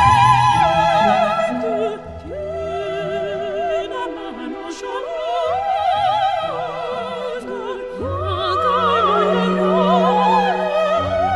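Music: a solo voice singing long, held phrases in an operatic style with wide vibrato, over sustained low accompaniment.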